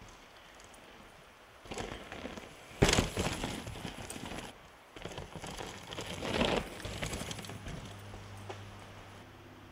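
Mountain bike rolling past on a dirt trail, its tyres crunching over dirt and roots. A sharp clatter comes about three seconds in, and a second spell of the same noise follows a few seconds later. A faint low steady hum comes in near the end.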